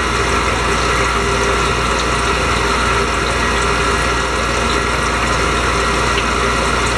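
Steady machine hum with a few high whining tones, with water churning where a leak-test tube discharges into a tank: a valve test stand running while a 6-inch valve passes (leaks through its seat).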